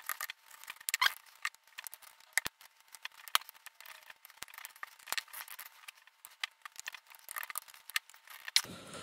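The plastic dome of an Antela 9 W smart RGB LED bulb being pried off its housing with a thin metal blade: a steady run of small, irregular clicks and cracks as the glued seam breaks apart.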